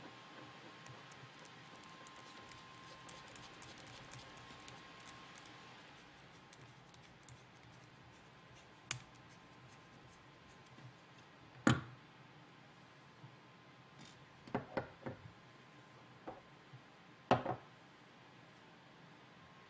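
A small screwdriver turns a tiny screw into a plastic servo mount, making faint, fine clicking for the first several seconds. Then come a handful of sharp knocks, the loudest about twelve seconds in, as the small plastic parts and the screwdriver are handled and put down on a wooden tabletop.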